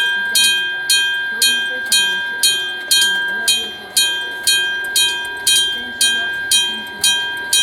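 Electric gong-type railway level-crossing bell ringing, struck about twice a second, each stroke ringing on and fading before the next. This is the crossing's warning that a train is coming.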